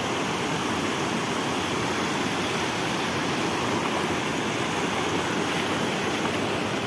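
River water rushing steadily over a rock ledge in small rapids.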